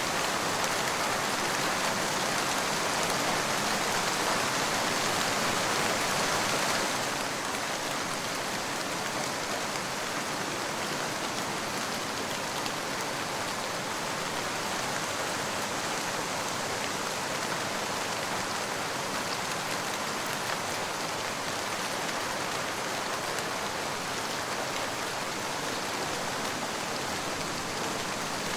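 Steady rain falling on a surface, a dense even hiss of drops that gets a little softer about seven seconds in.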